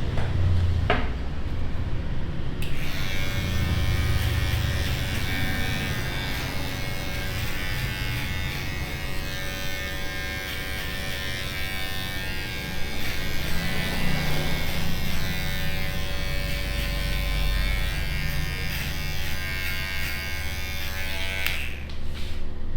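Electric hair clippers buzzing steadily, switched on a couple of seconds in and off shortly before the end.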